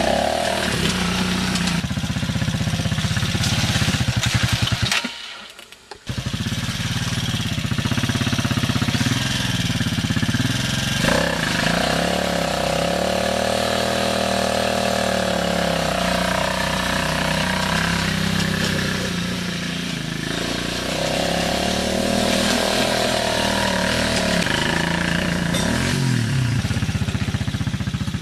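Kingway 200 quad's engine running under load in mud, revving up and down repeatedly. The sound drops away for about a second about five seconds in, then the engine is back.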